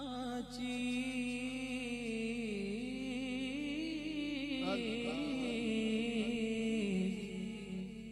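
Male voice singing a long, wordless melody of wavering held notes between sung lines of a naat.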